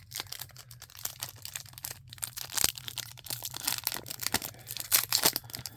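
A Flair Marvel trading card pack wrapper being torn open and crinkled by hand: a run of irregular crackles and rustles.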